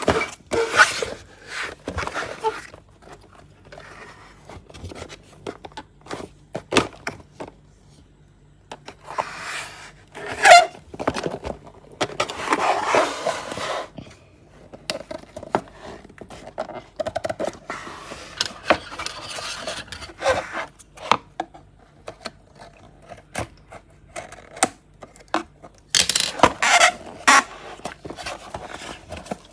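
Toy packaging being handled and opened by hand: irregular rustling and scraping in bursts, with scattered sharp clicks and taps.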